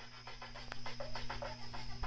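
Aloha Breeze ceiling fan running with a steady motor hum, under a fast, irregular run of clicks and breathy rustling that grows louder toward the end.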